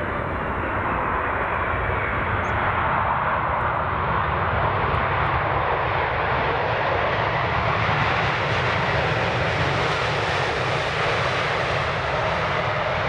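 Jet airliner engines running with a steady roar that grows brighter and a little louder toward the middle, then eases slightly near the end. Wind buffets the microphone underneath.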